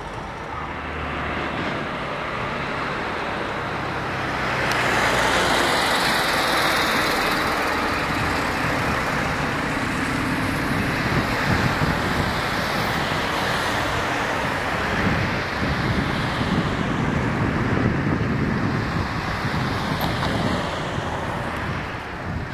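Road traffic: a steady rush of passing cars, swelling about four seconds in and staying loud.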